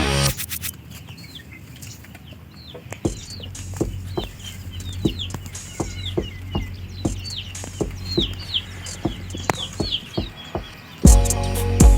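Chickens clucking in short, scattered bursts, with many quick, high, falling chirps throughout.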